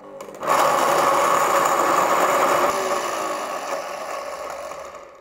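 Large countertop blender running at full speed, pureeing a thick mix of chickpeas, cannellini beans and liquid into hummus. The motor comes up to speed in the first half second, runs steadily, then dies away near the end.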